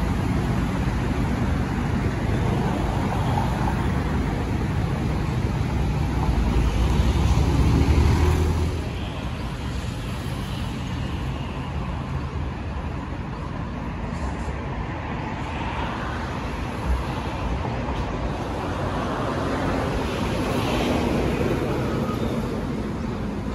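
Road traffic: a steady rumble of passing cars, swelling as a vehicle goes by about eight seconds in, then settling to a lower traffic hum.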